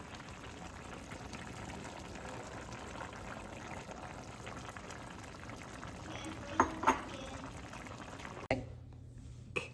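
Pot of ramen noodles boiling on the stove, a steady bubbling hiss, with two brief sharp sounds over it about six and a half seconds in. The boiling cuts off abruptly about eight and a half seconds in.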